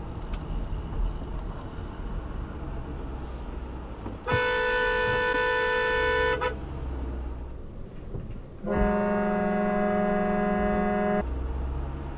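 Car driving with steady road noise, broken by two long car-horn blasts of about two seconds each: a higher-pitched one about four seconds in, and a lower-pitched one about nine seconds in.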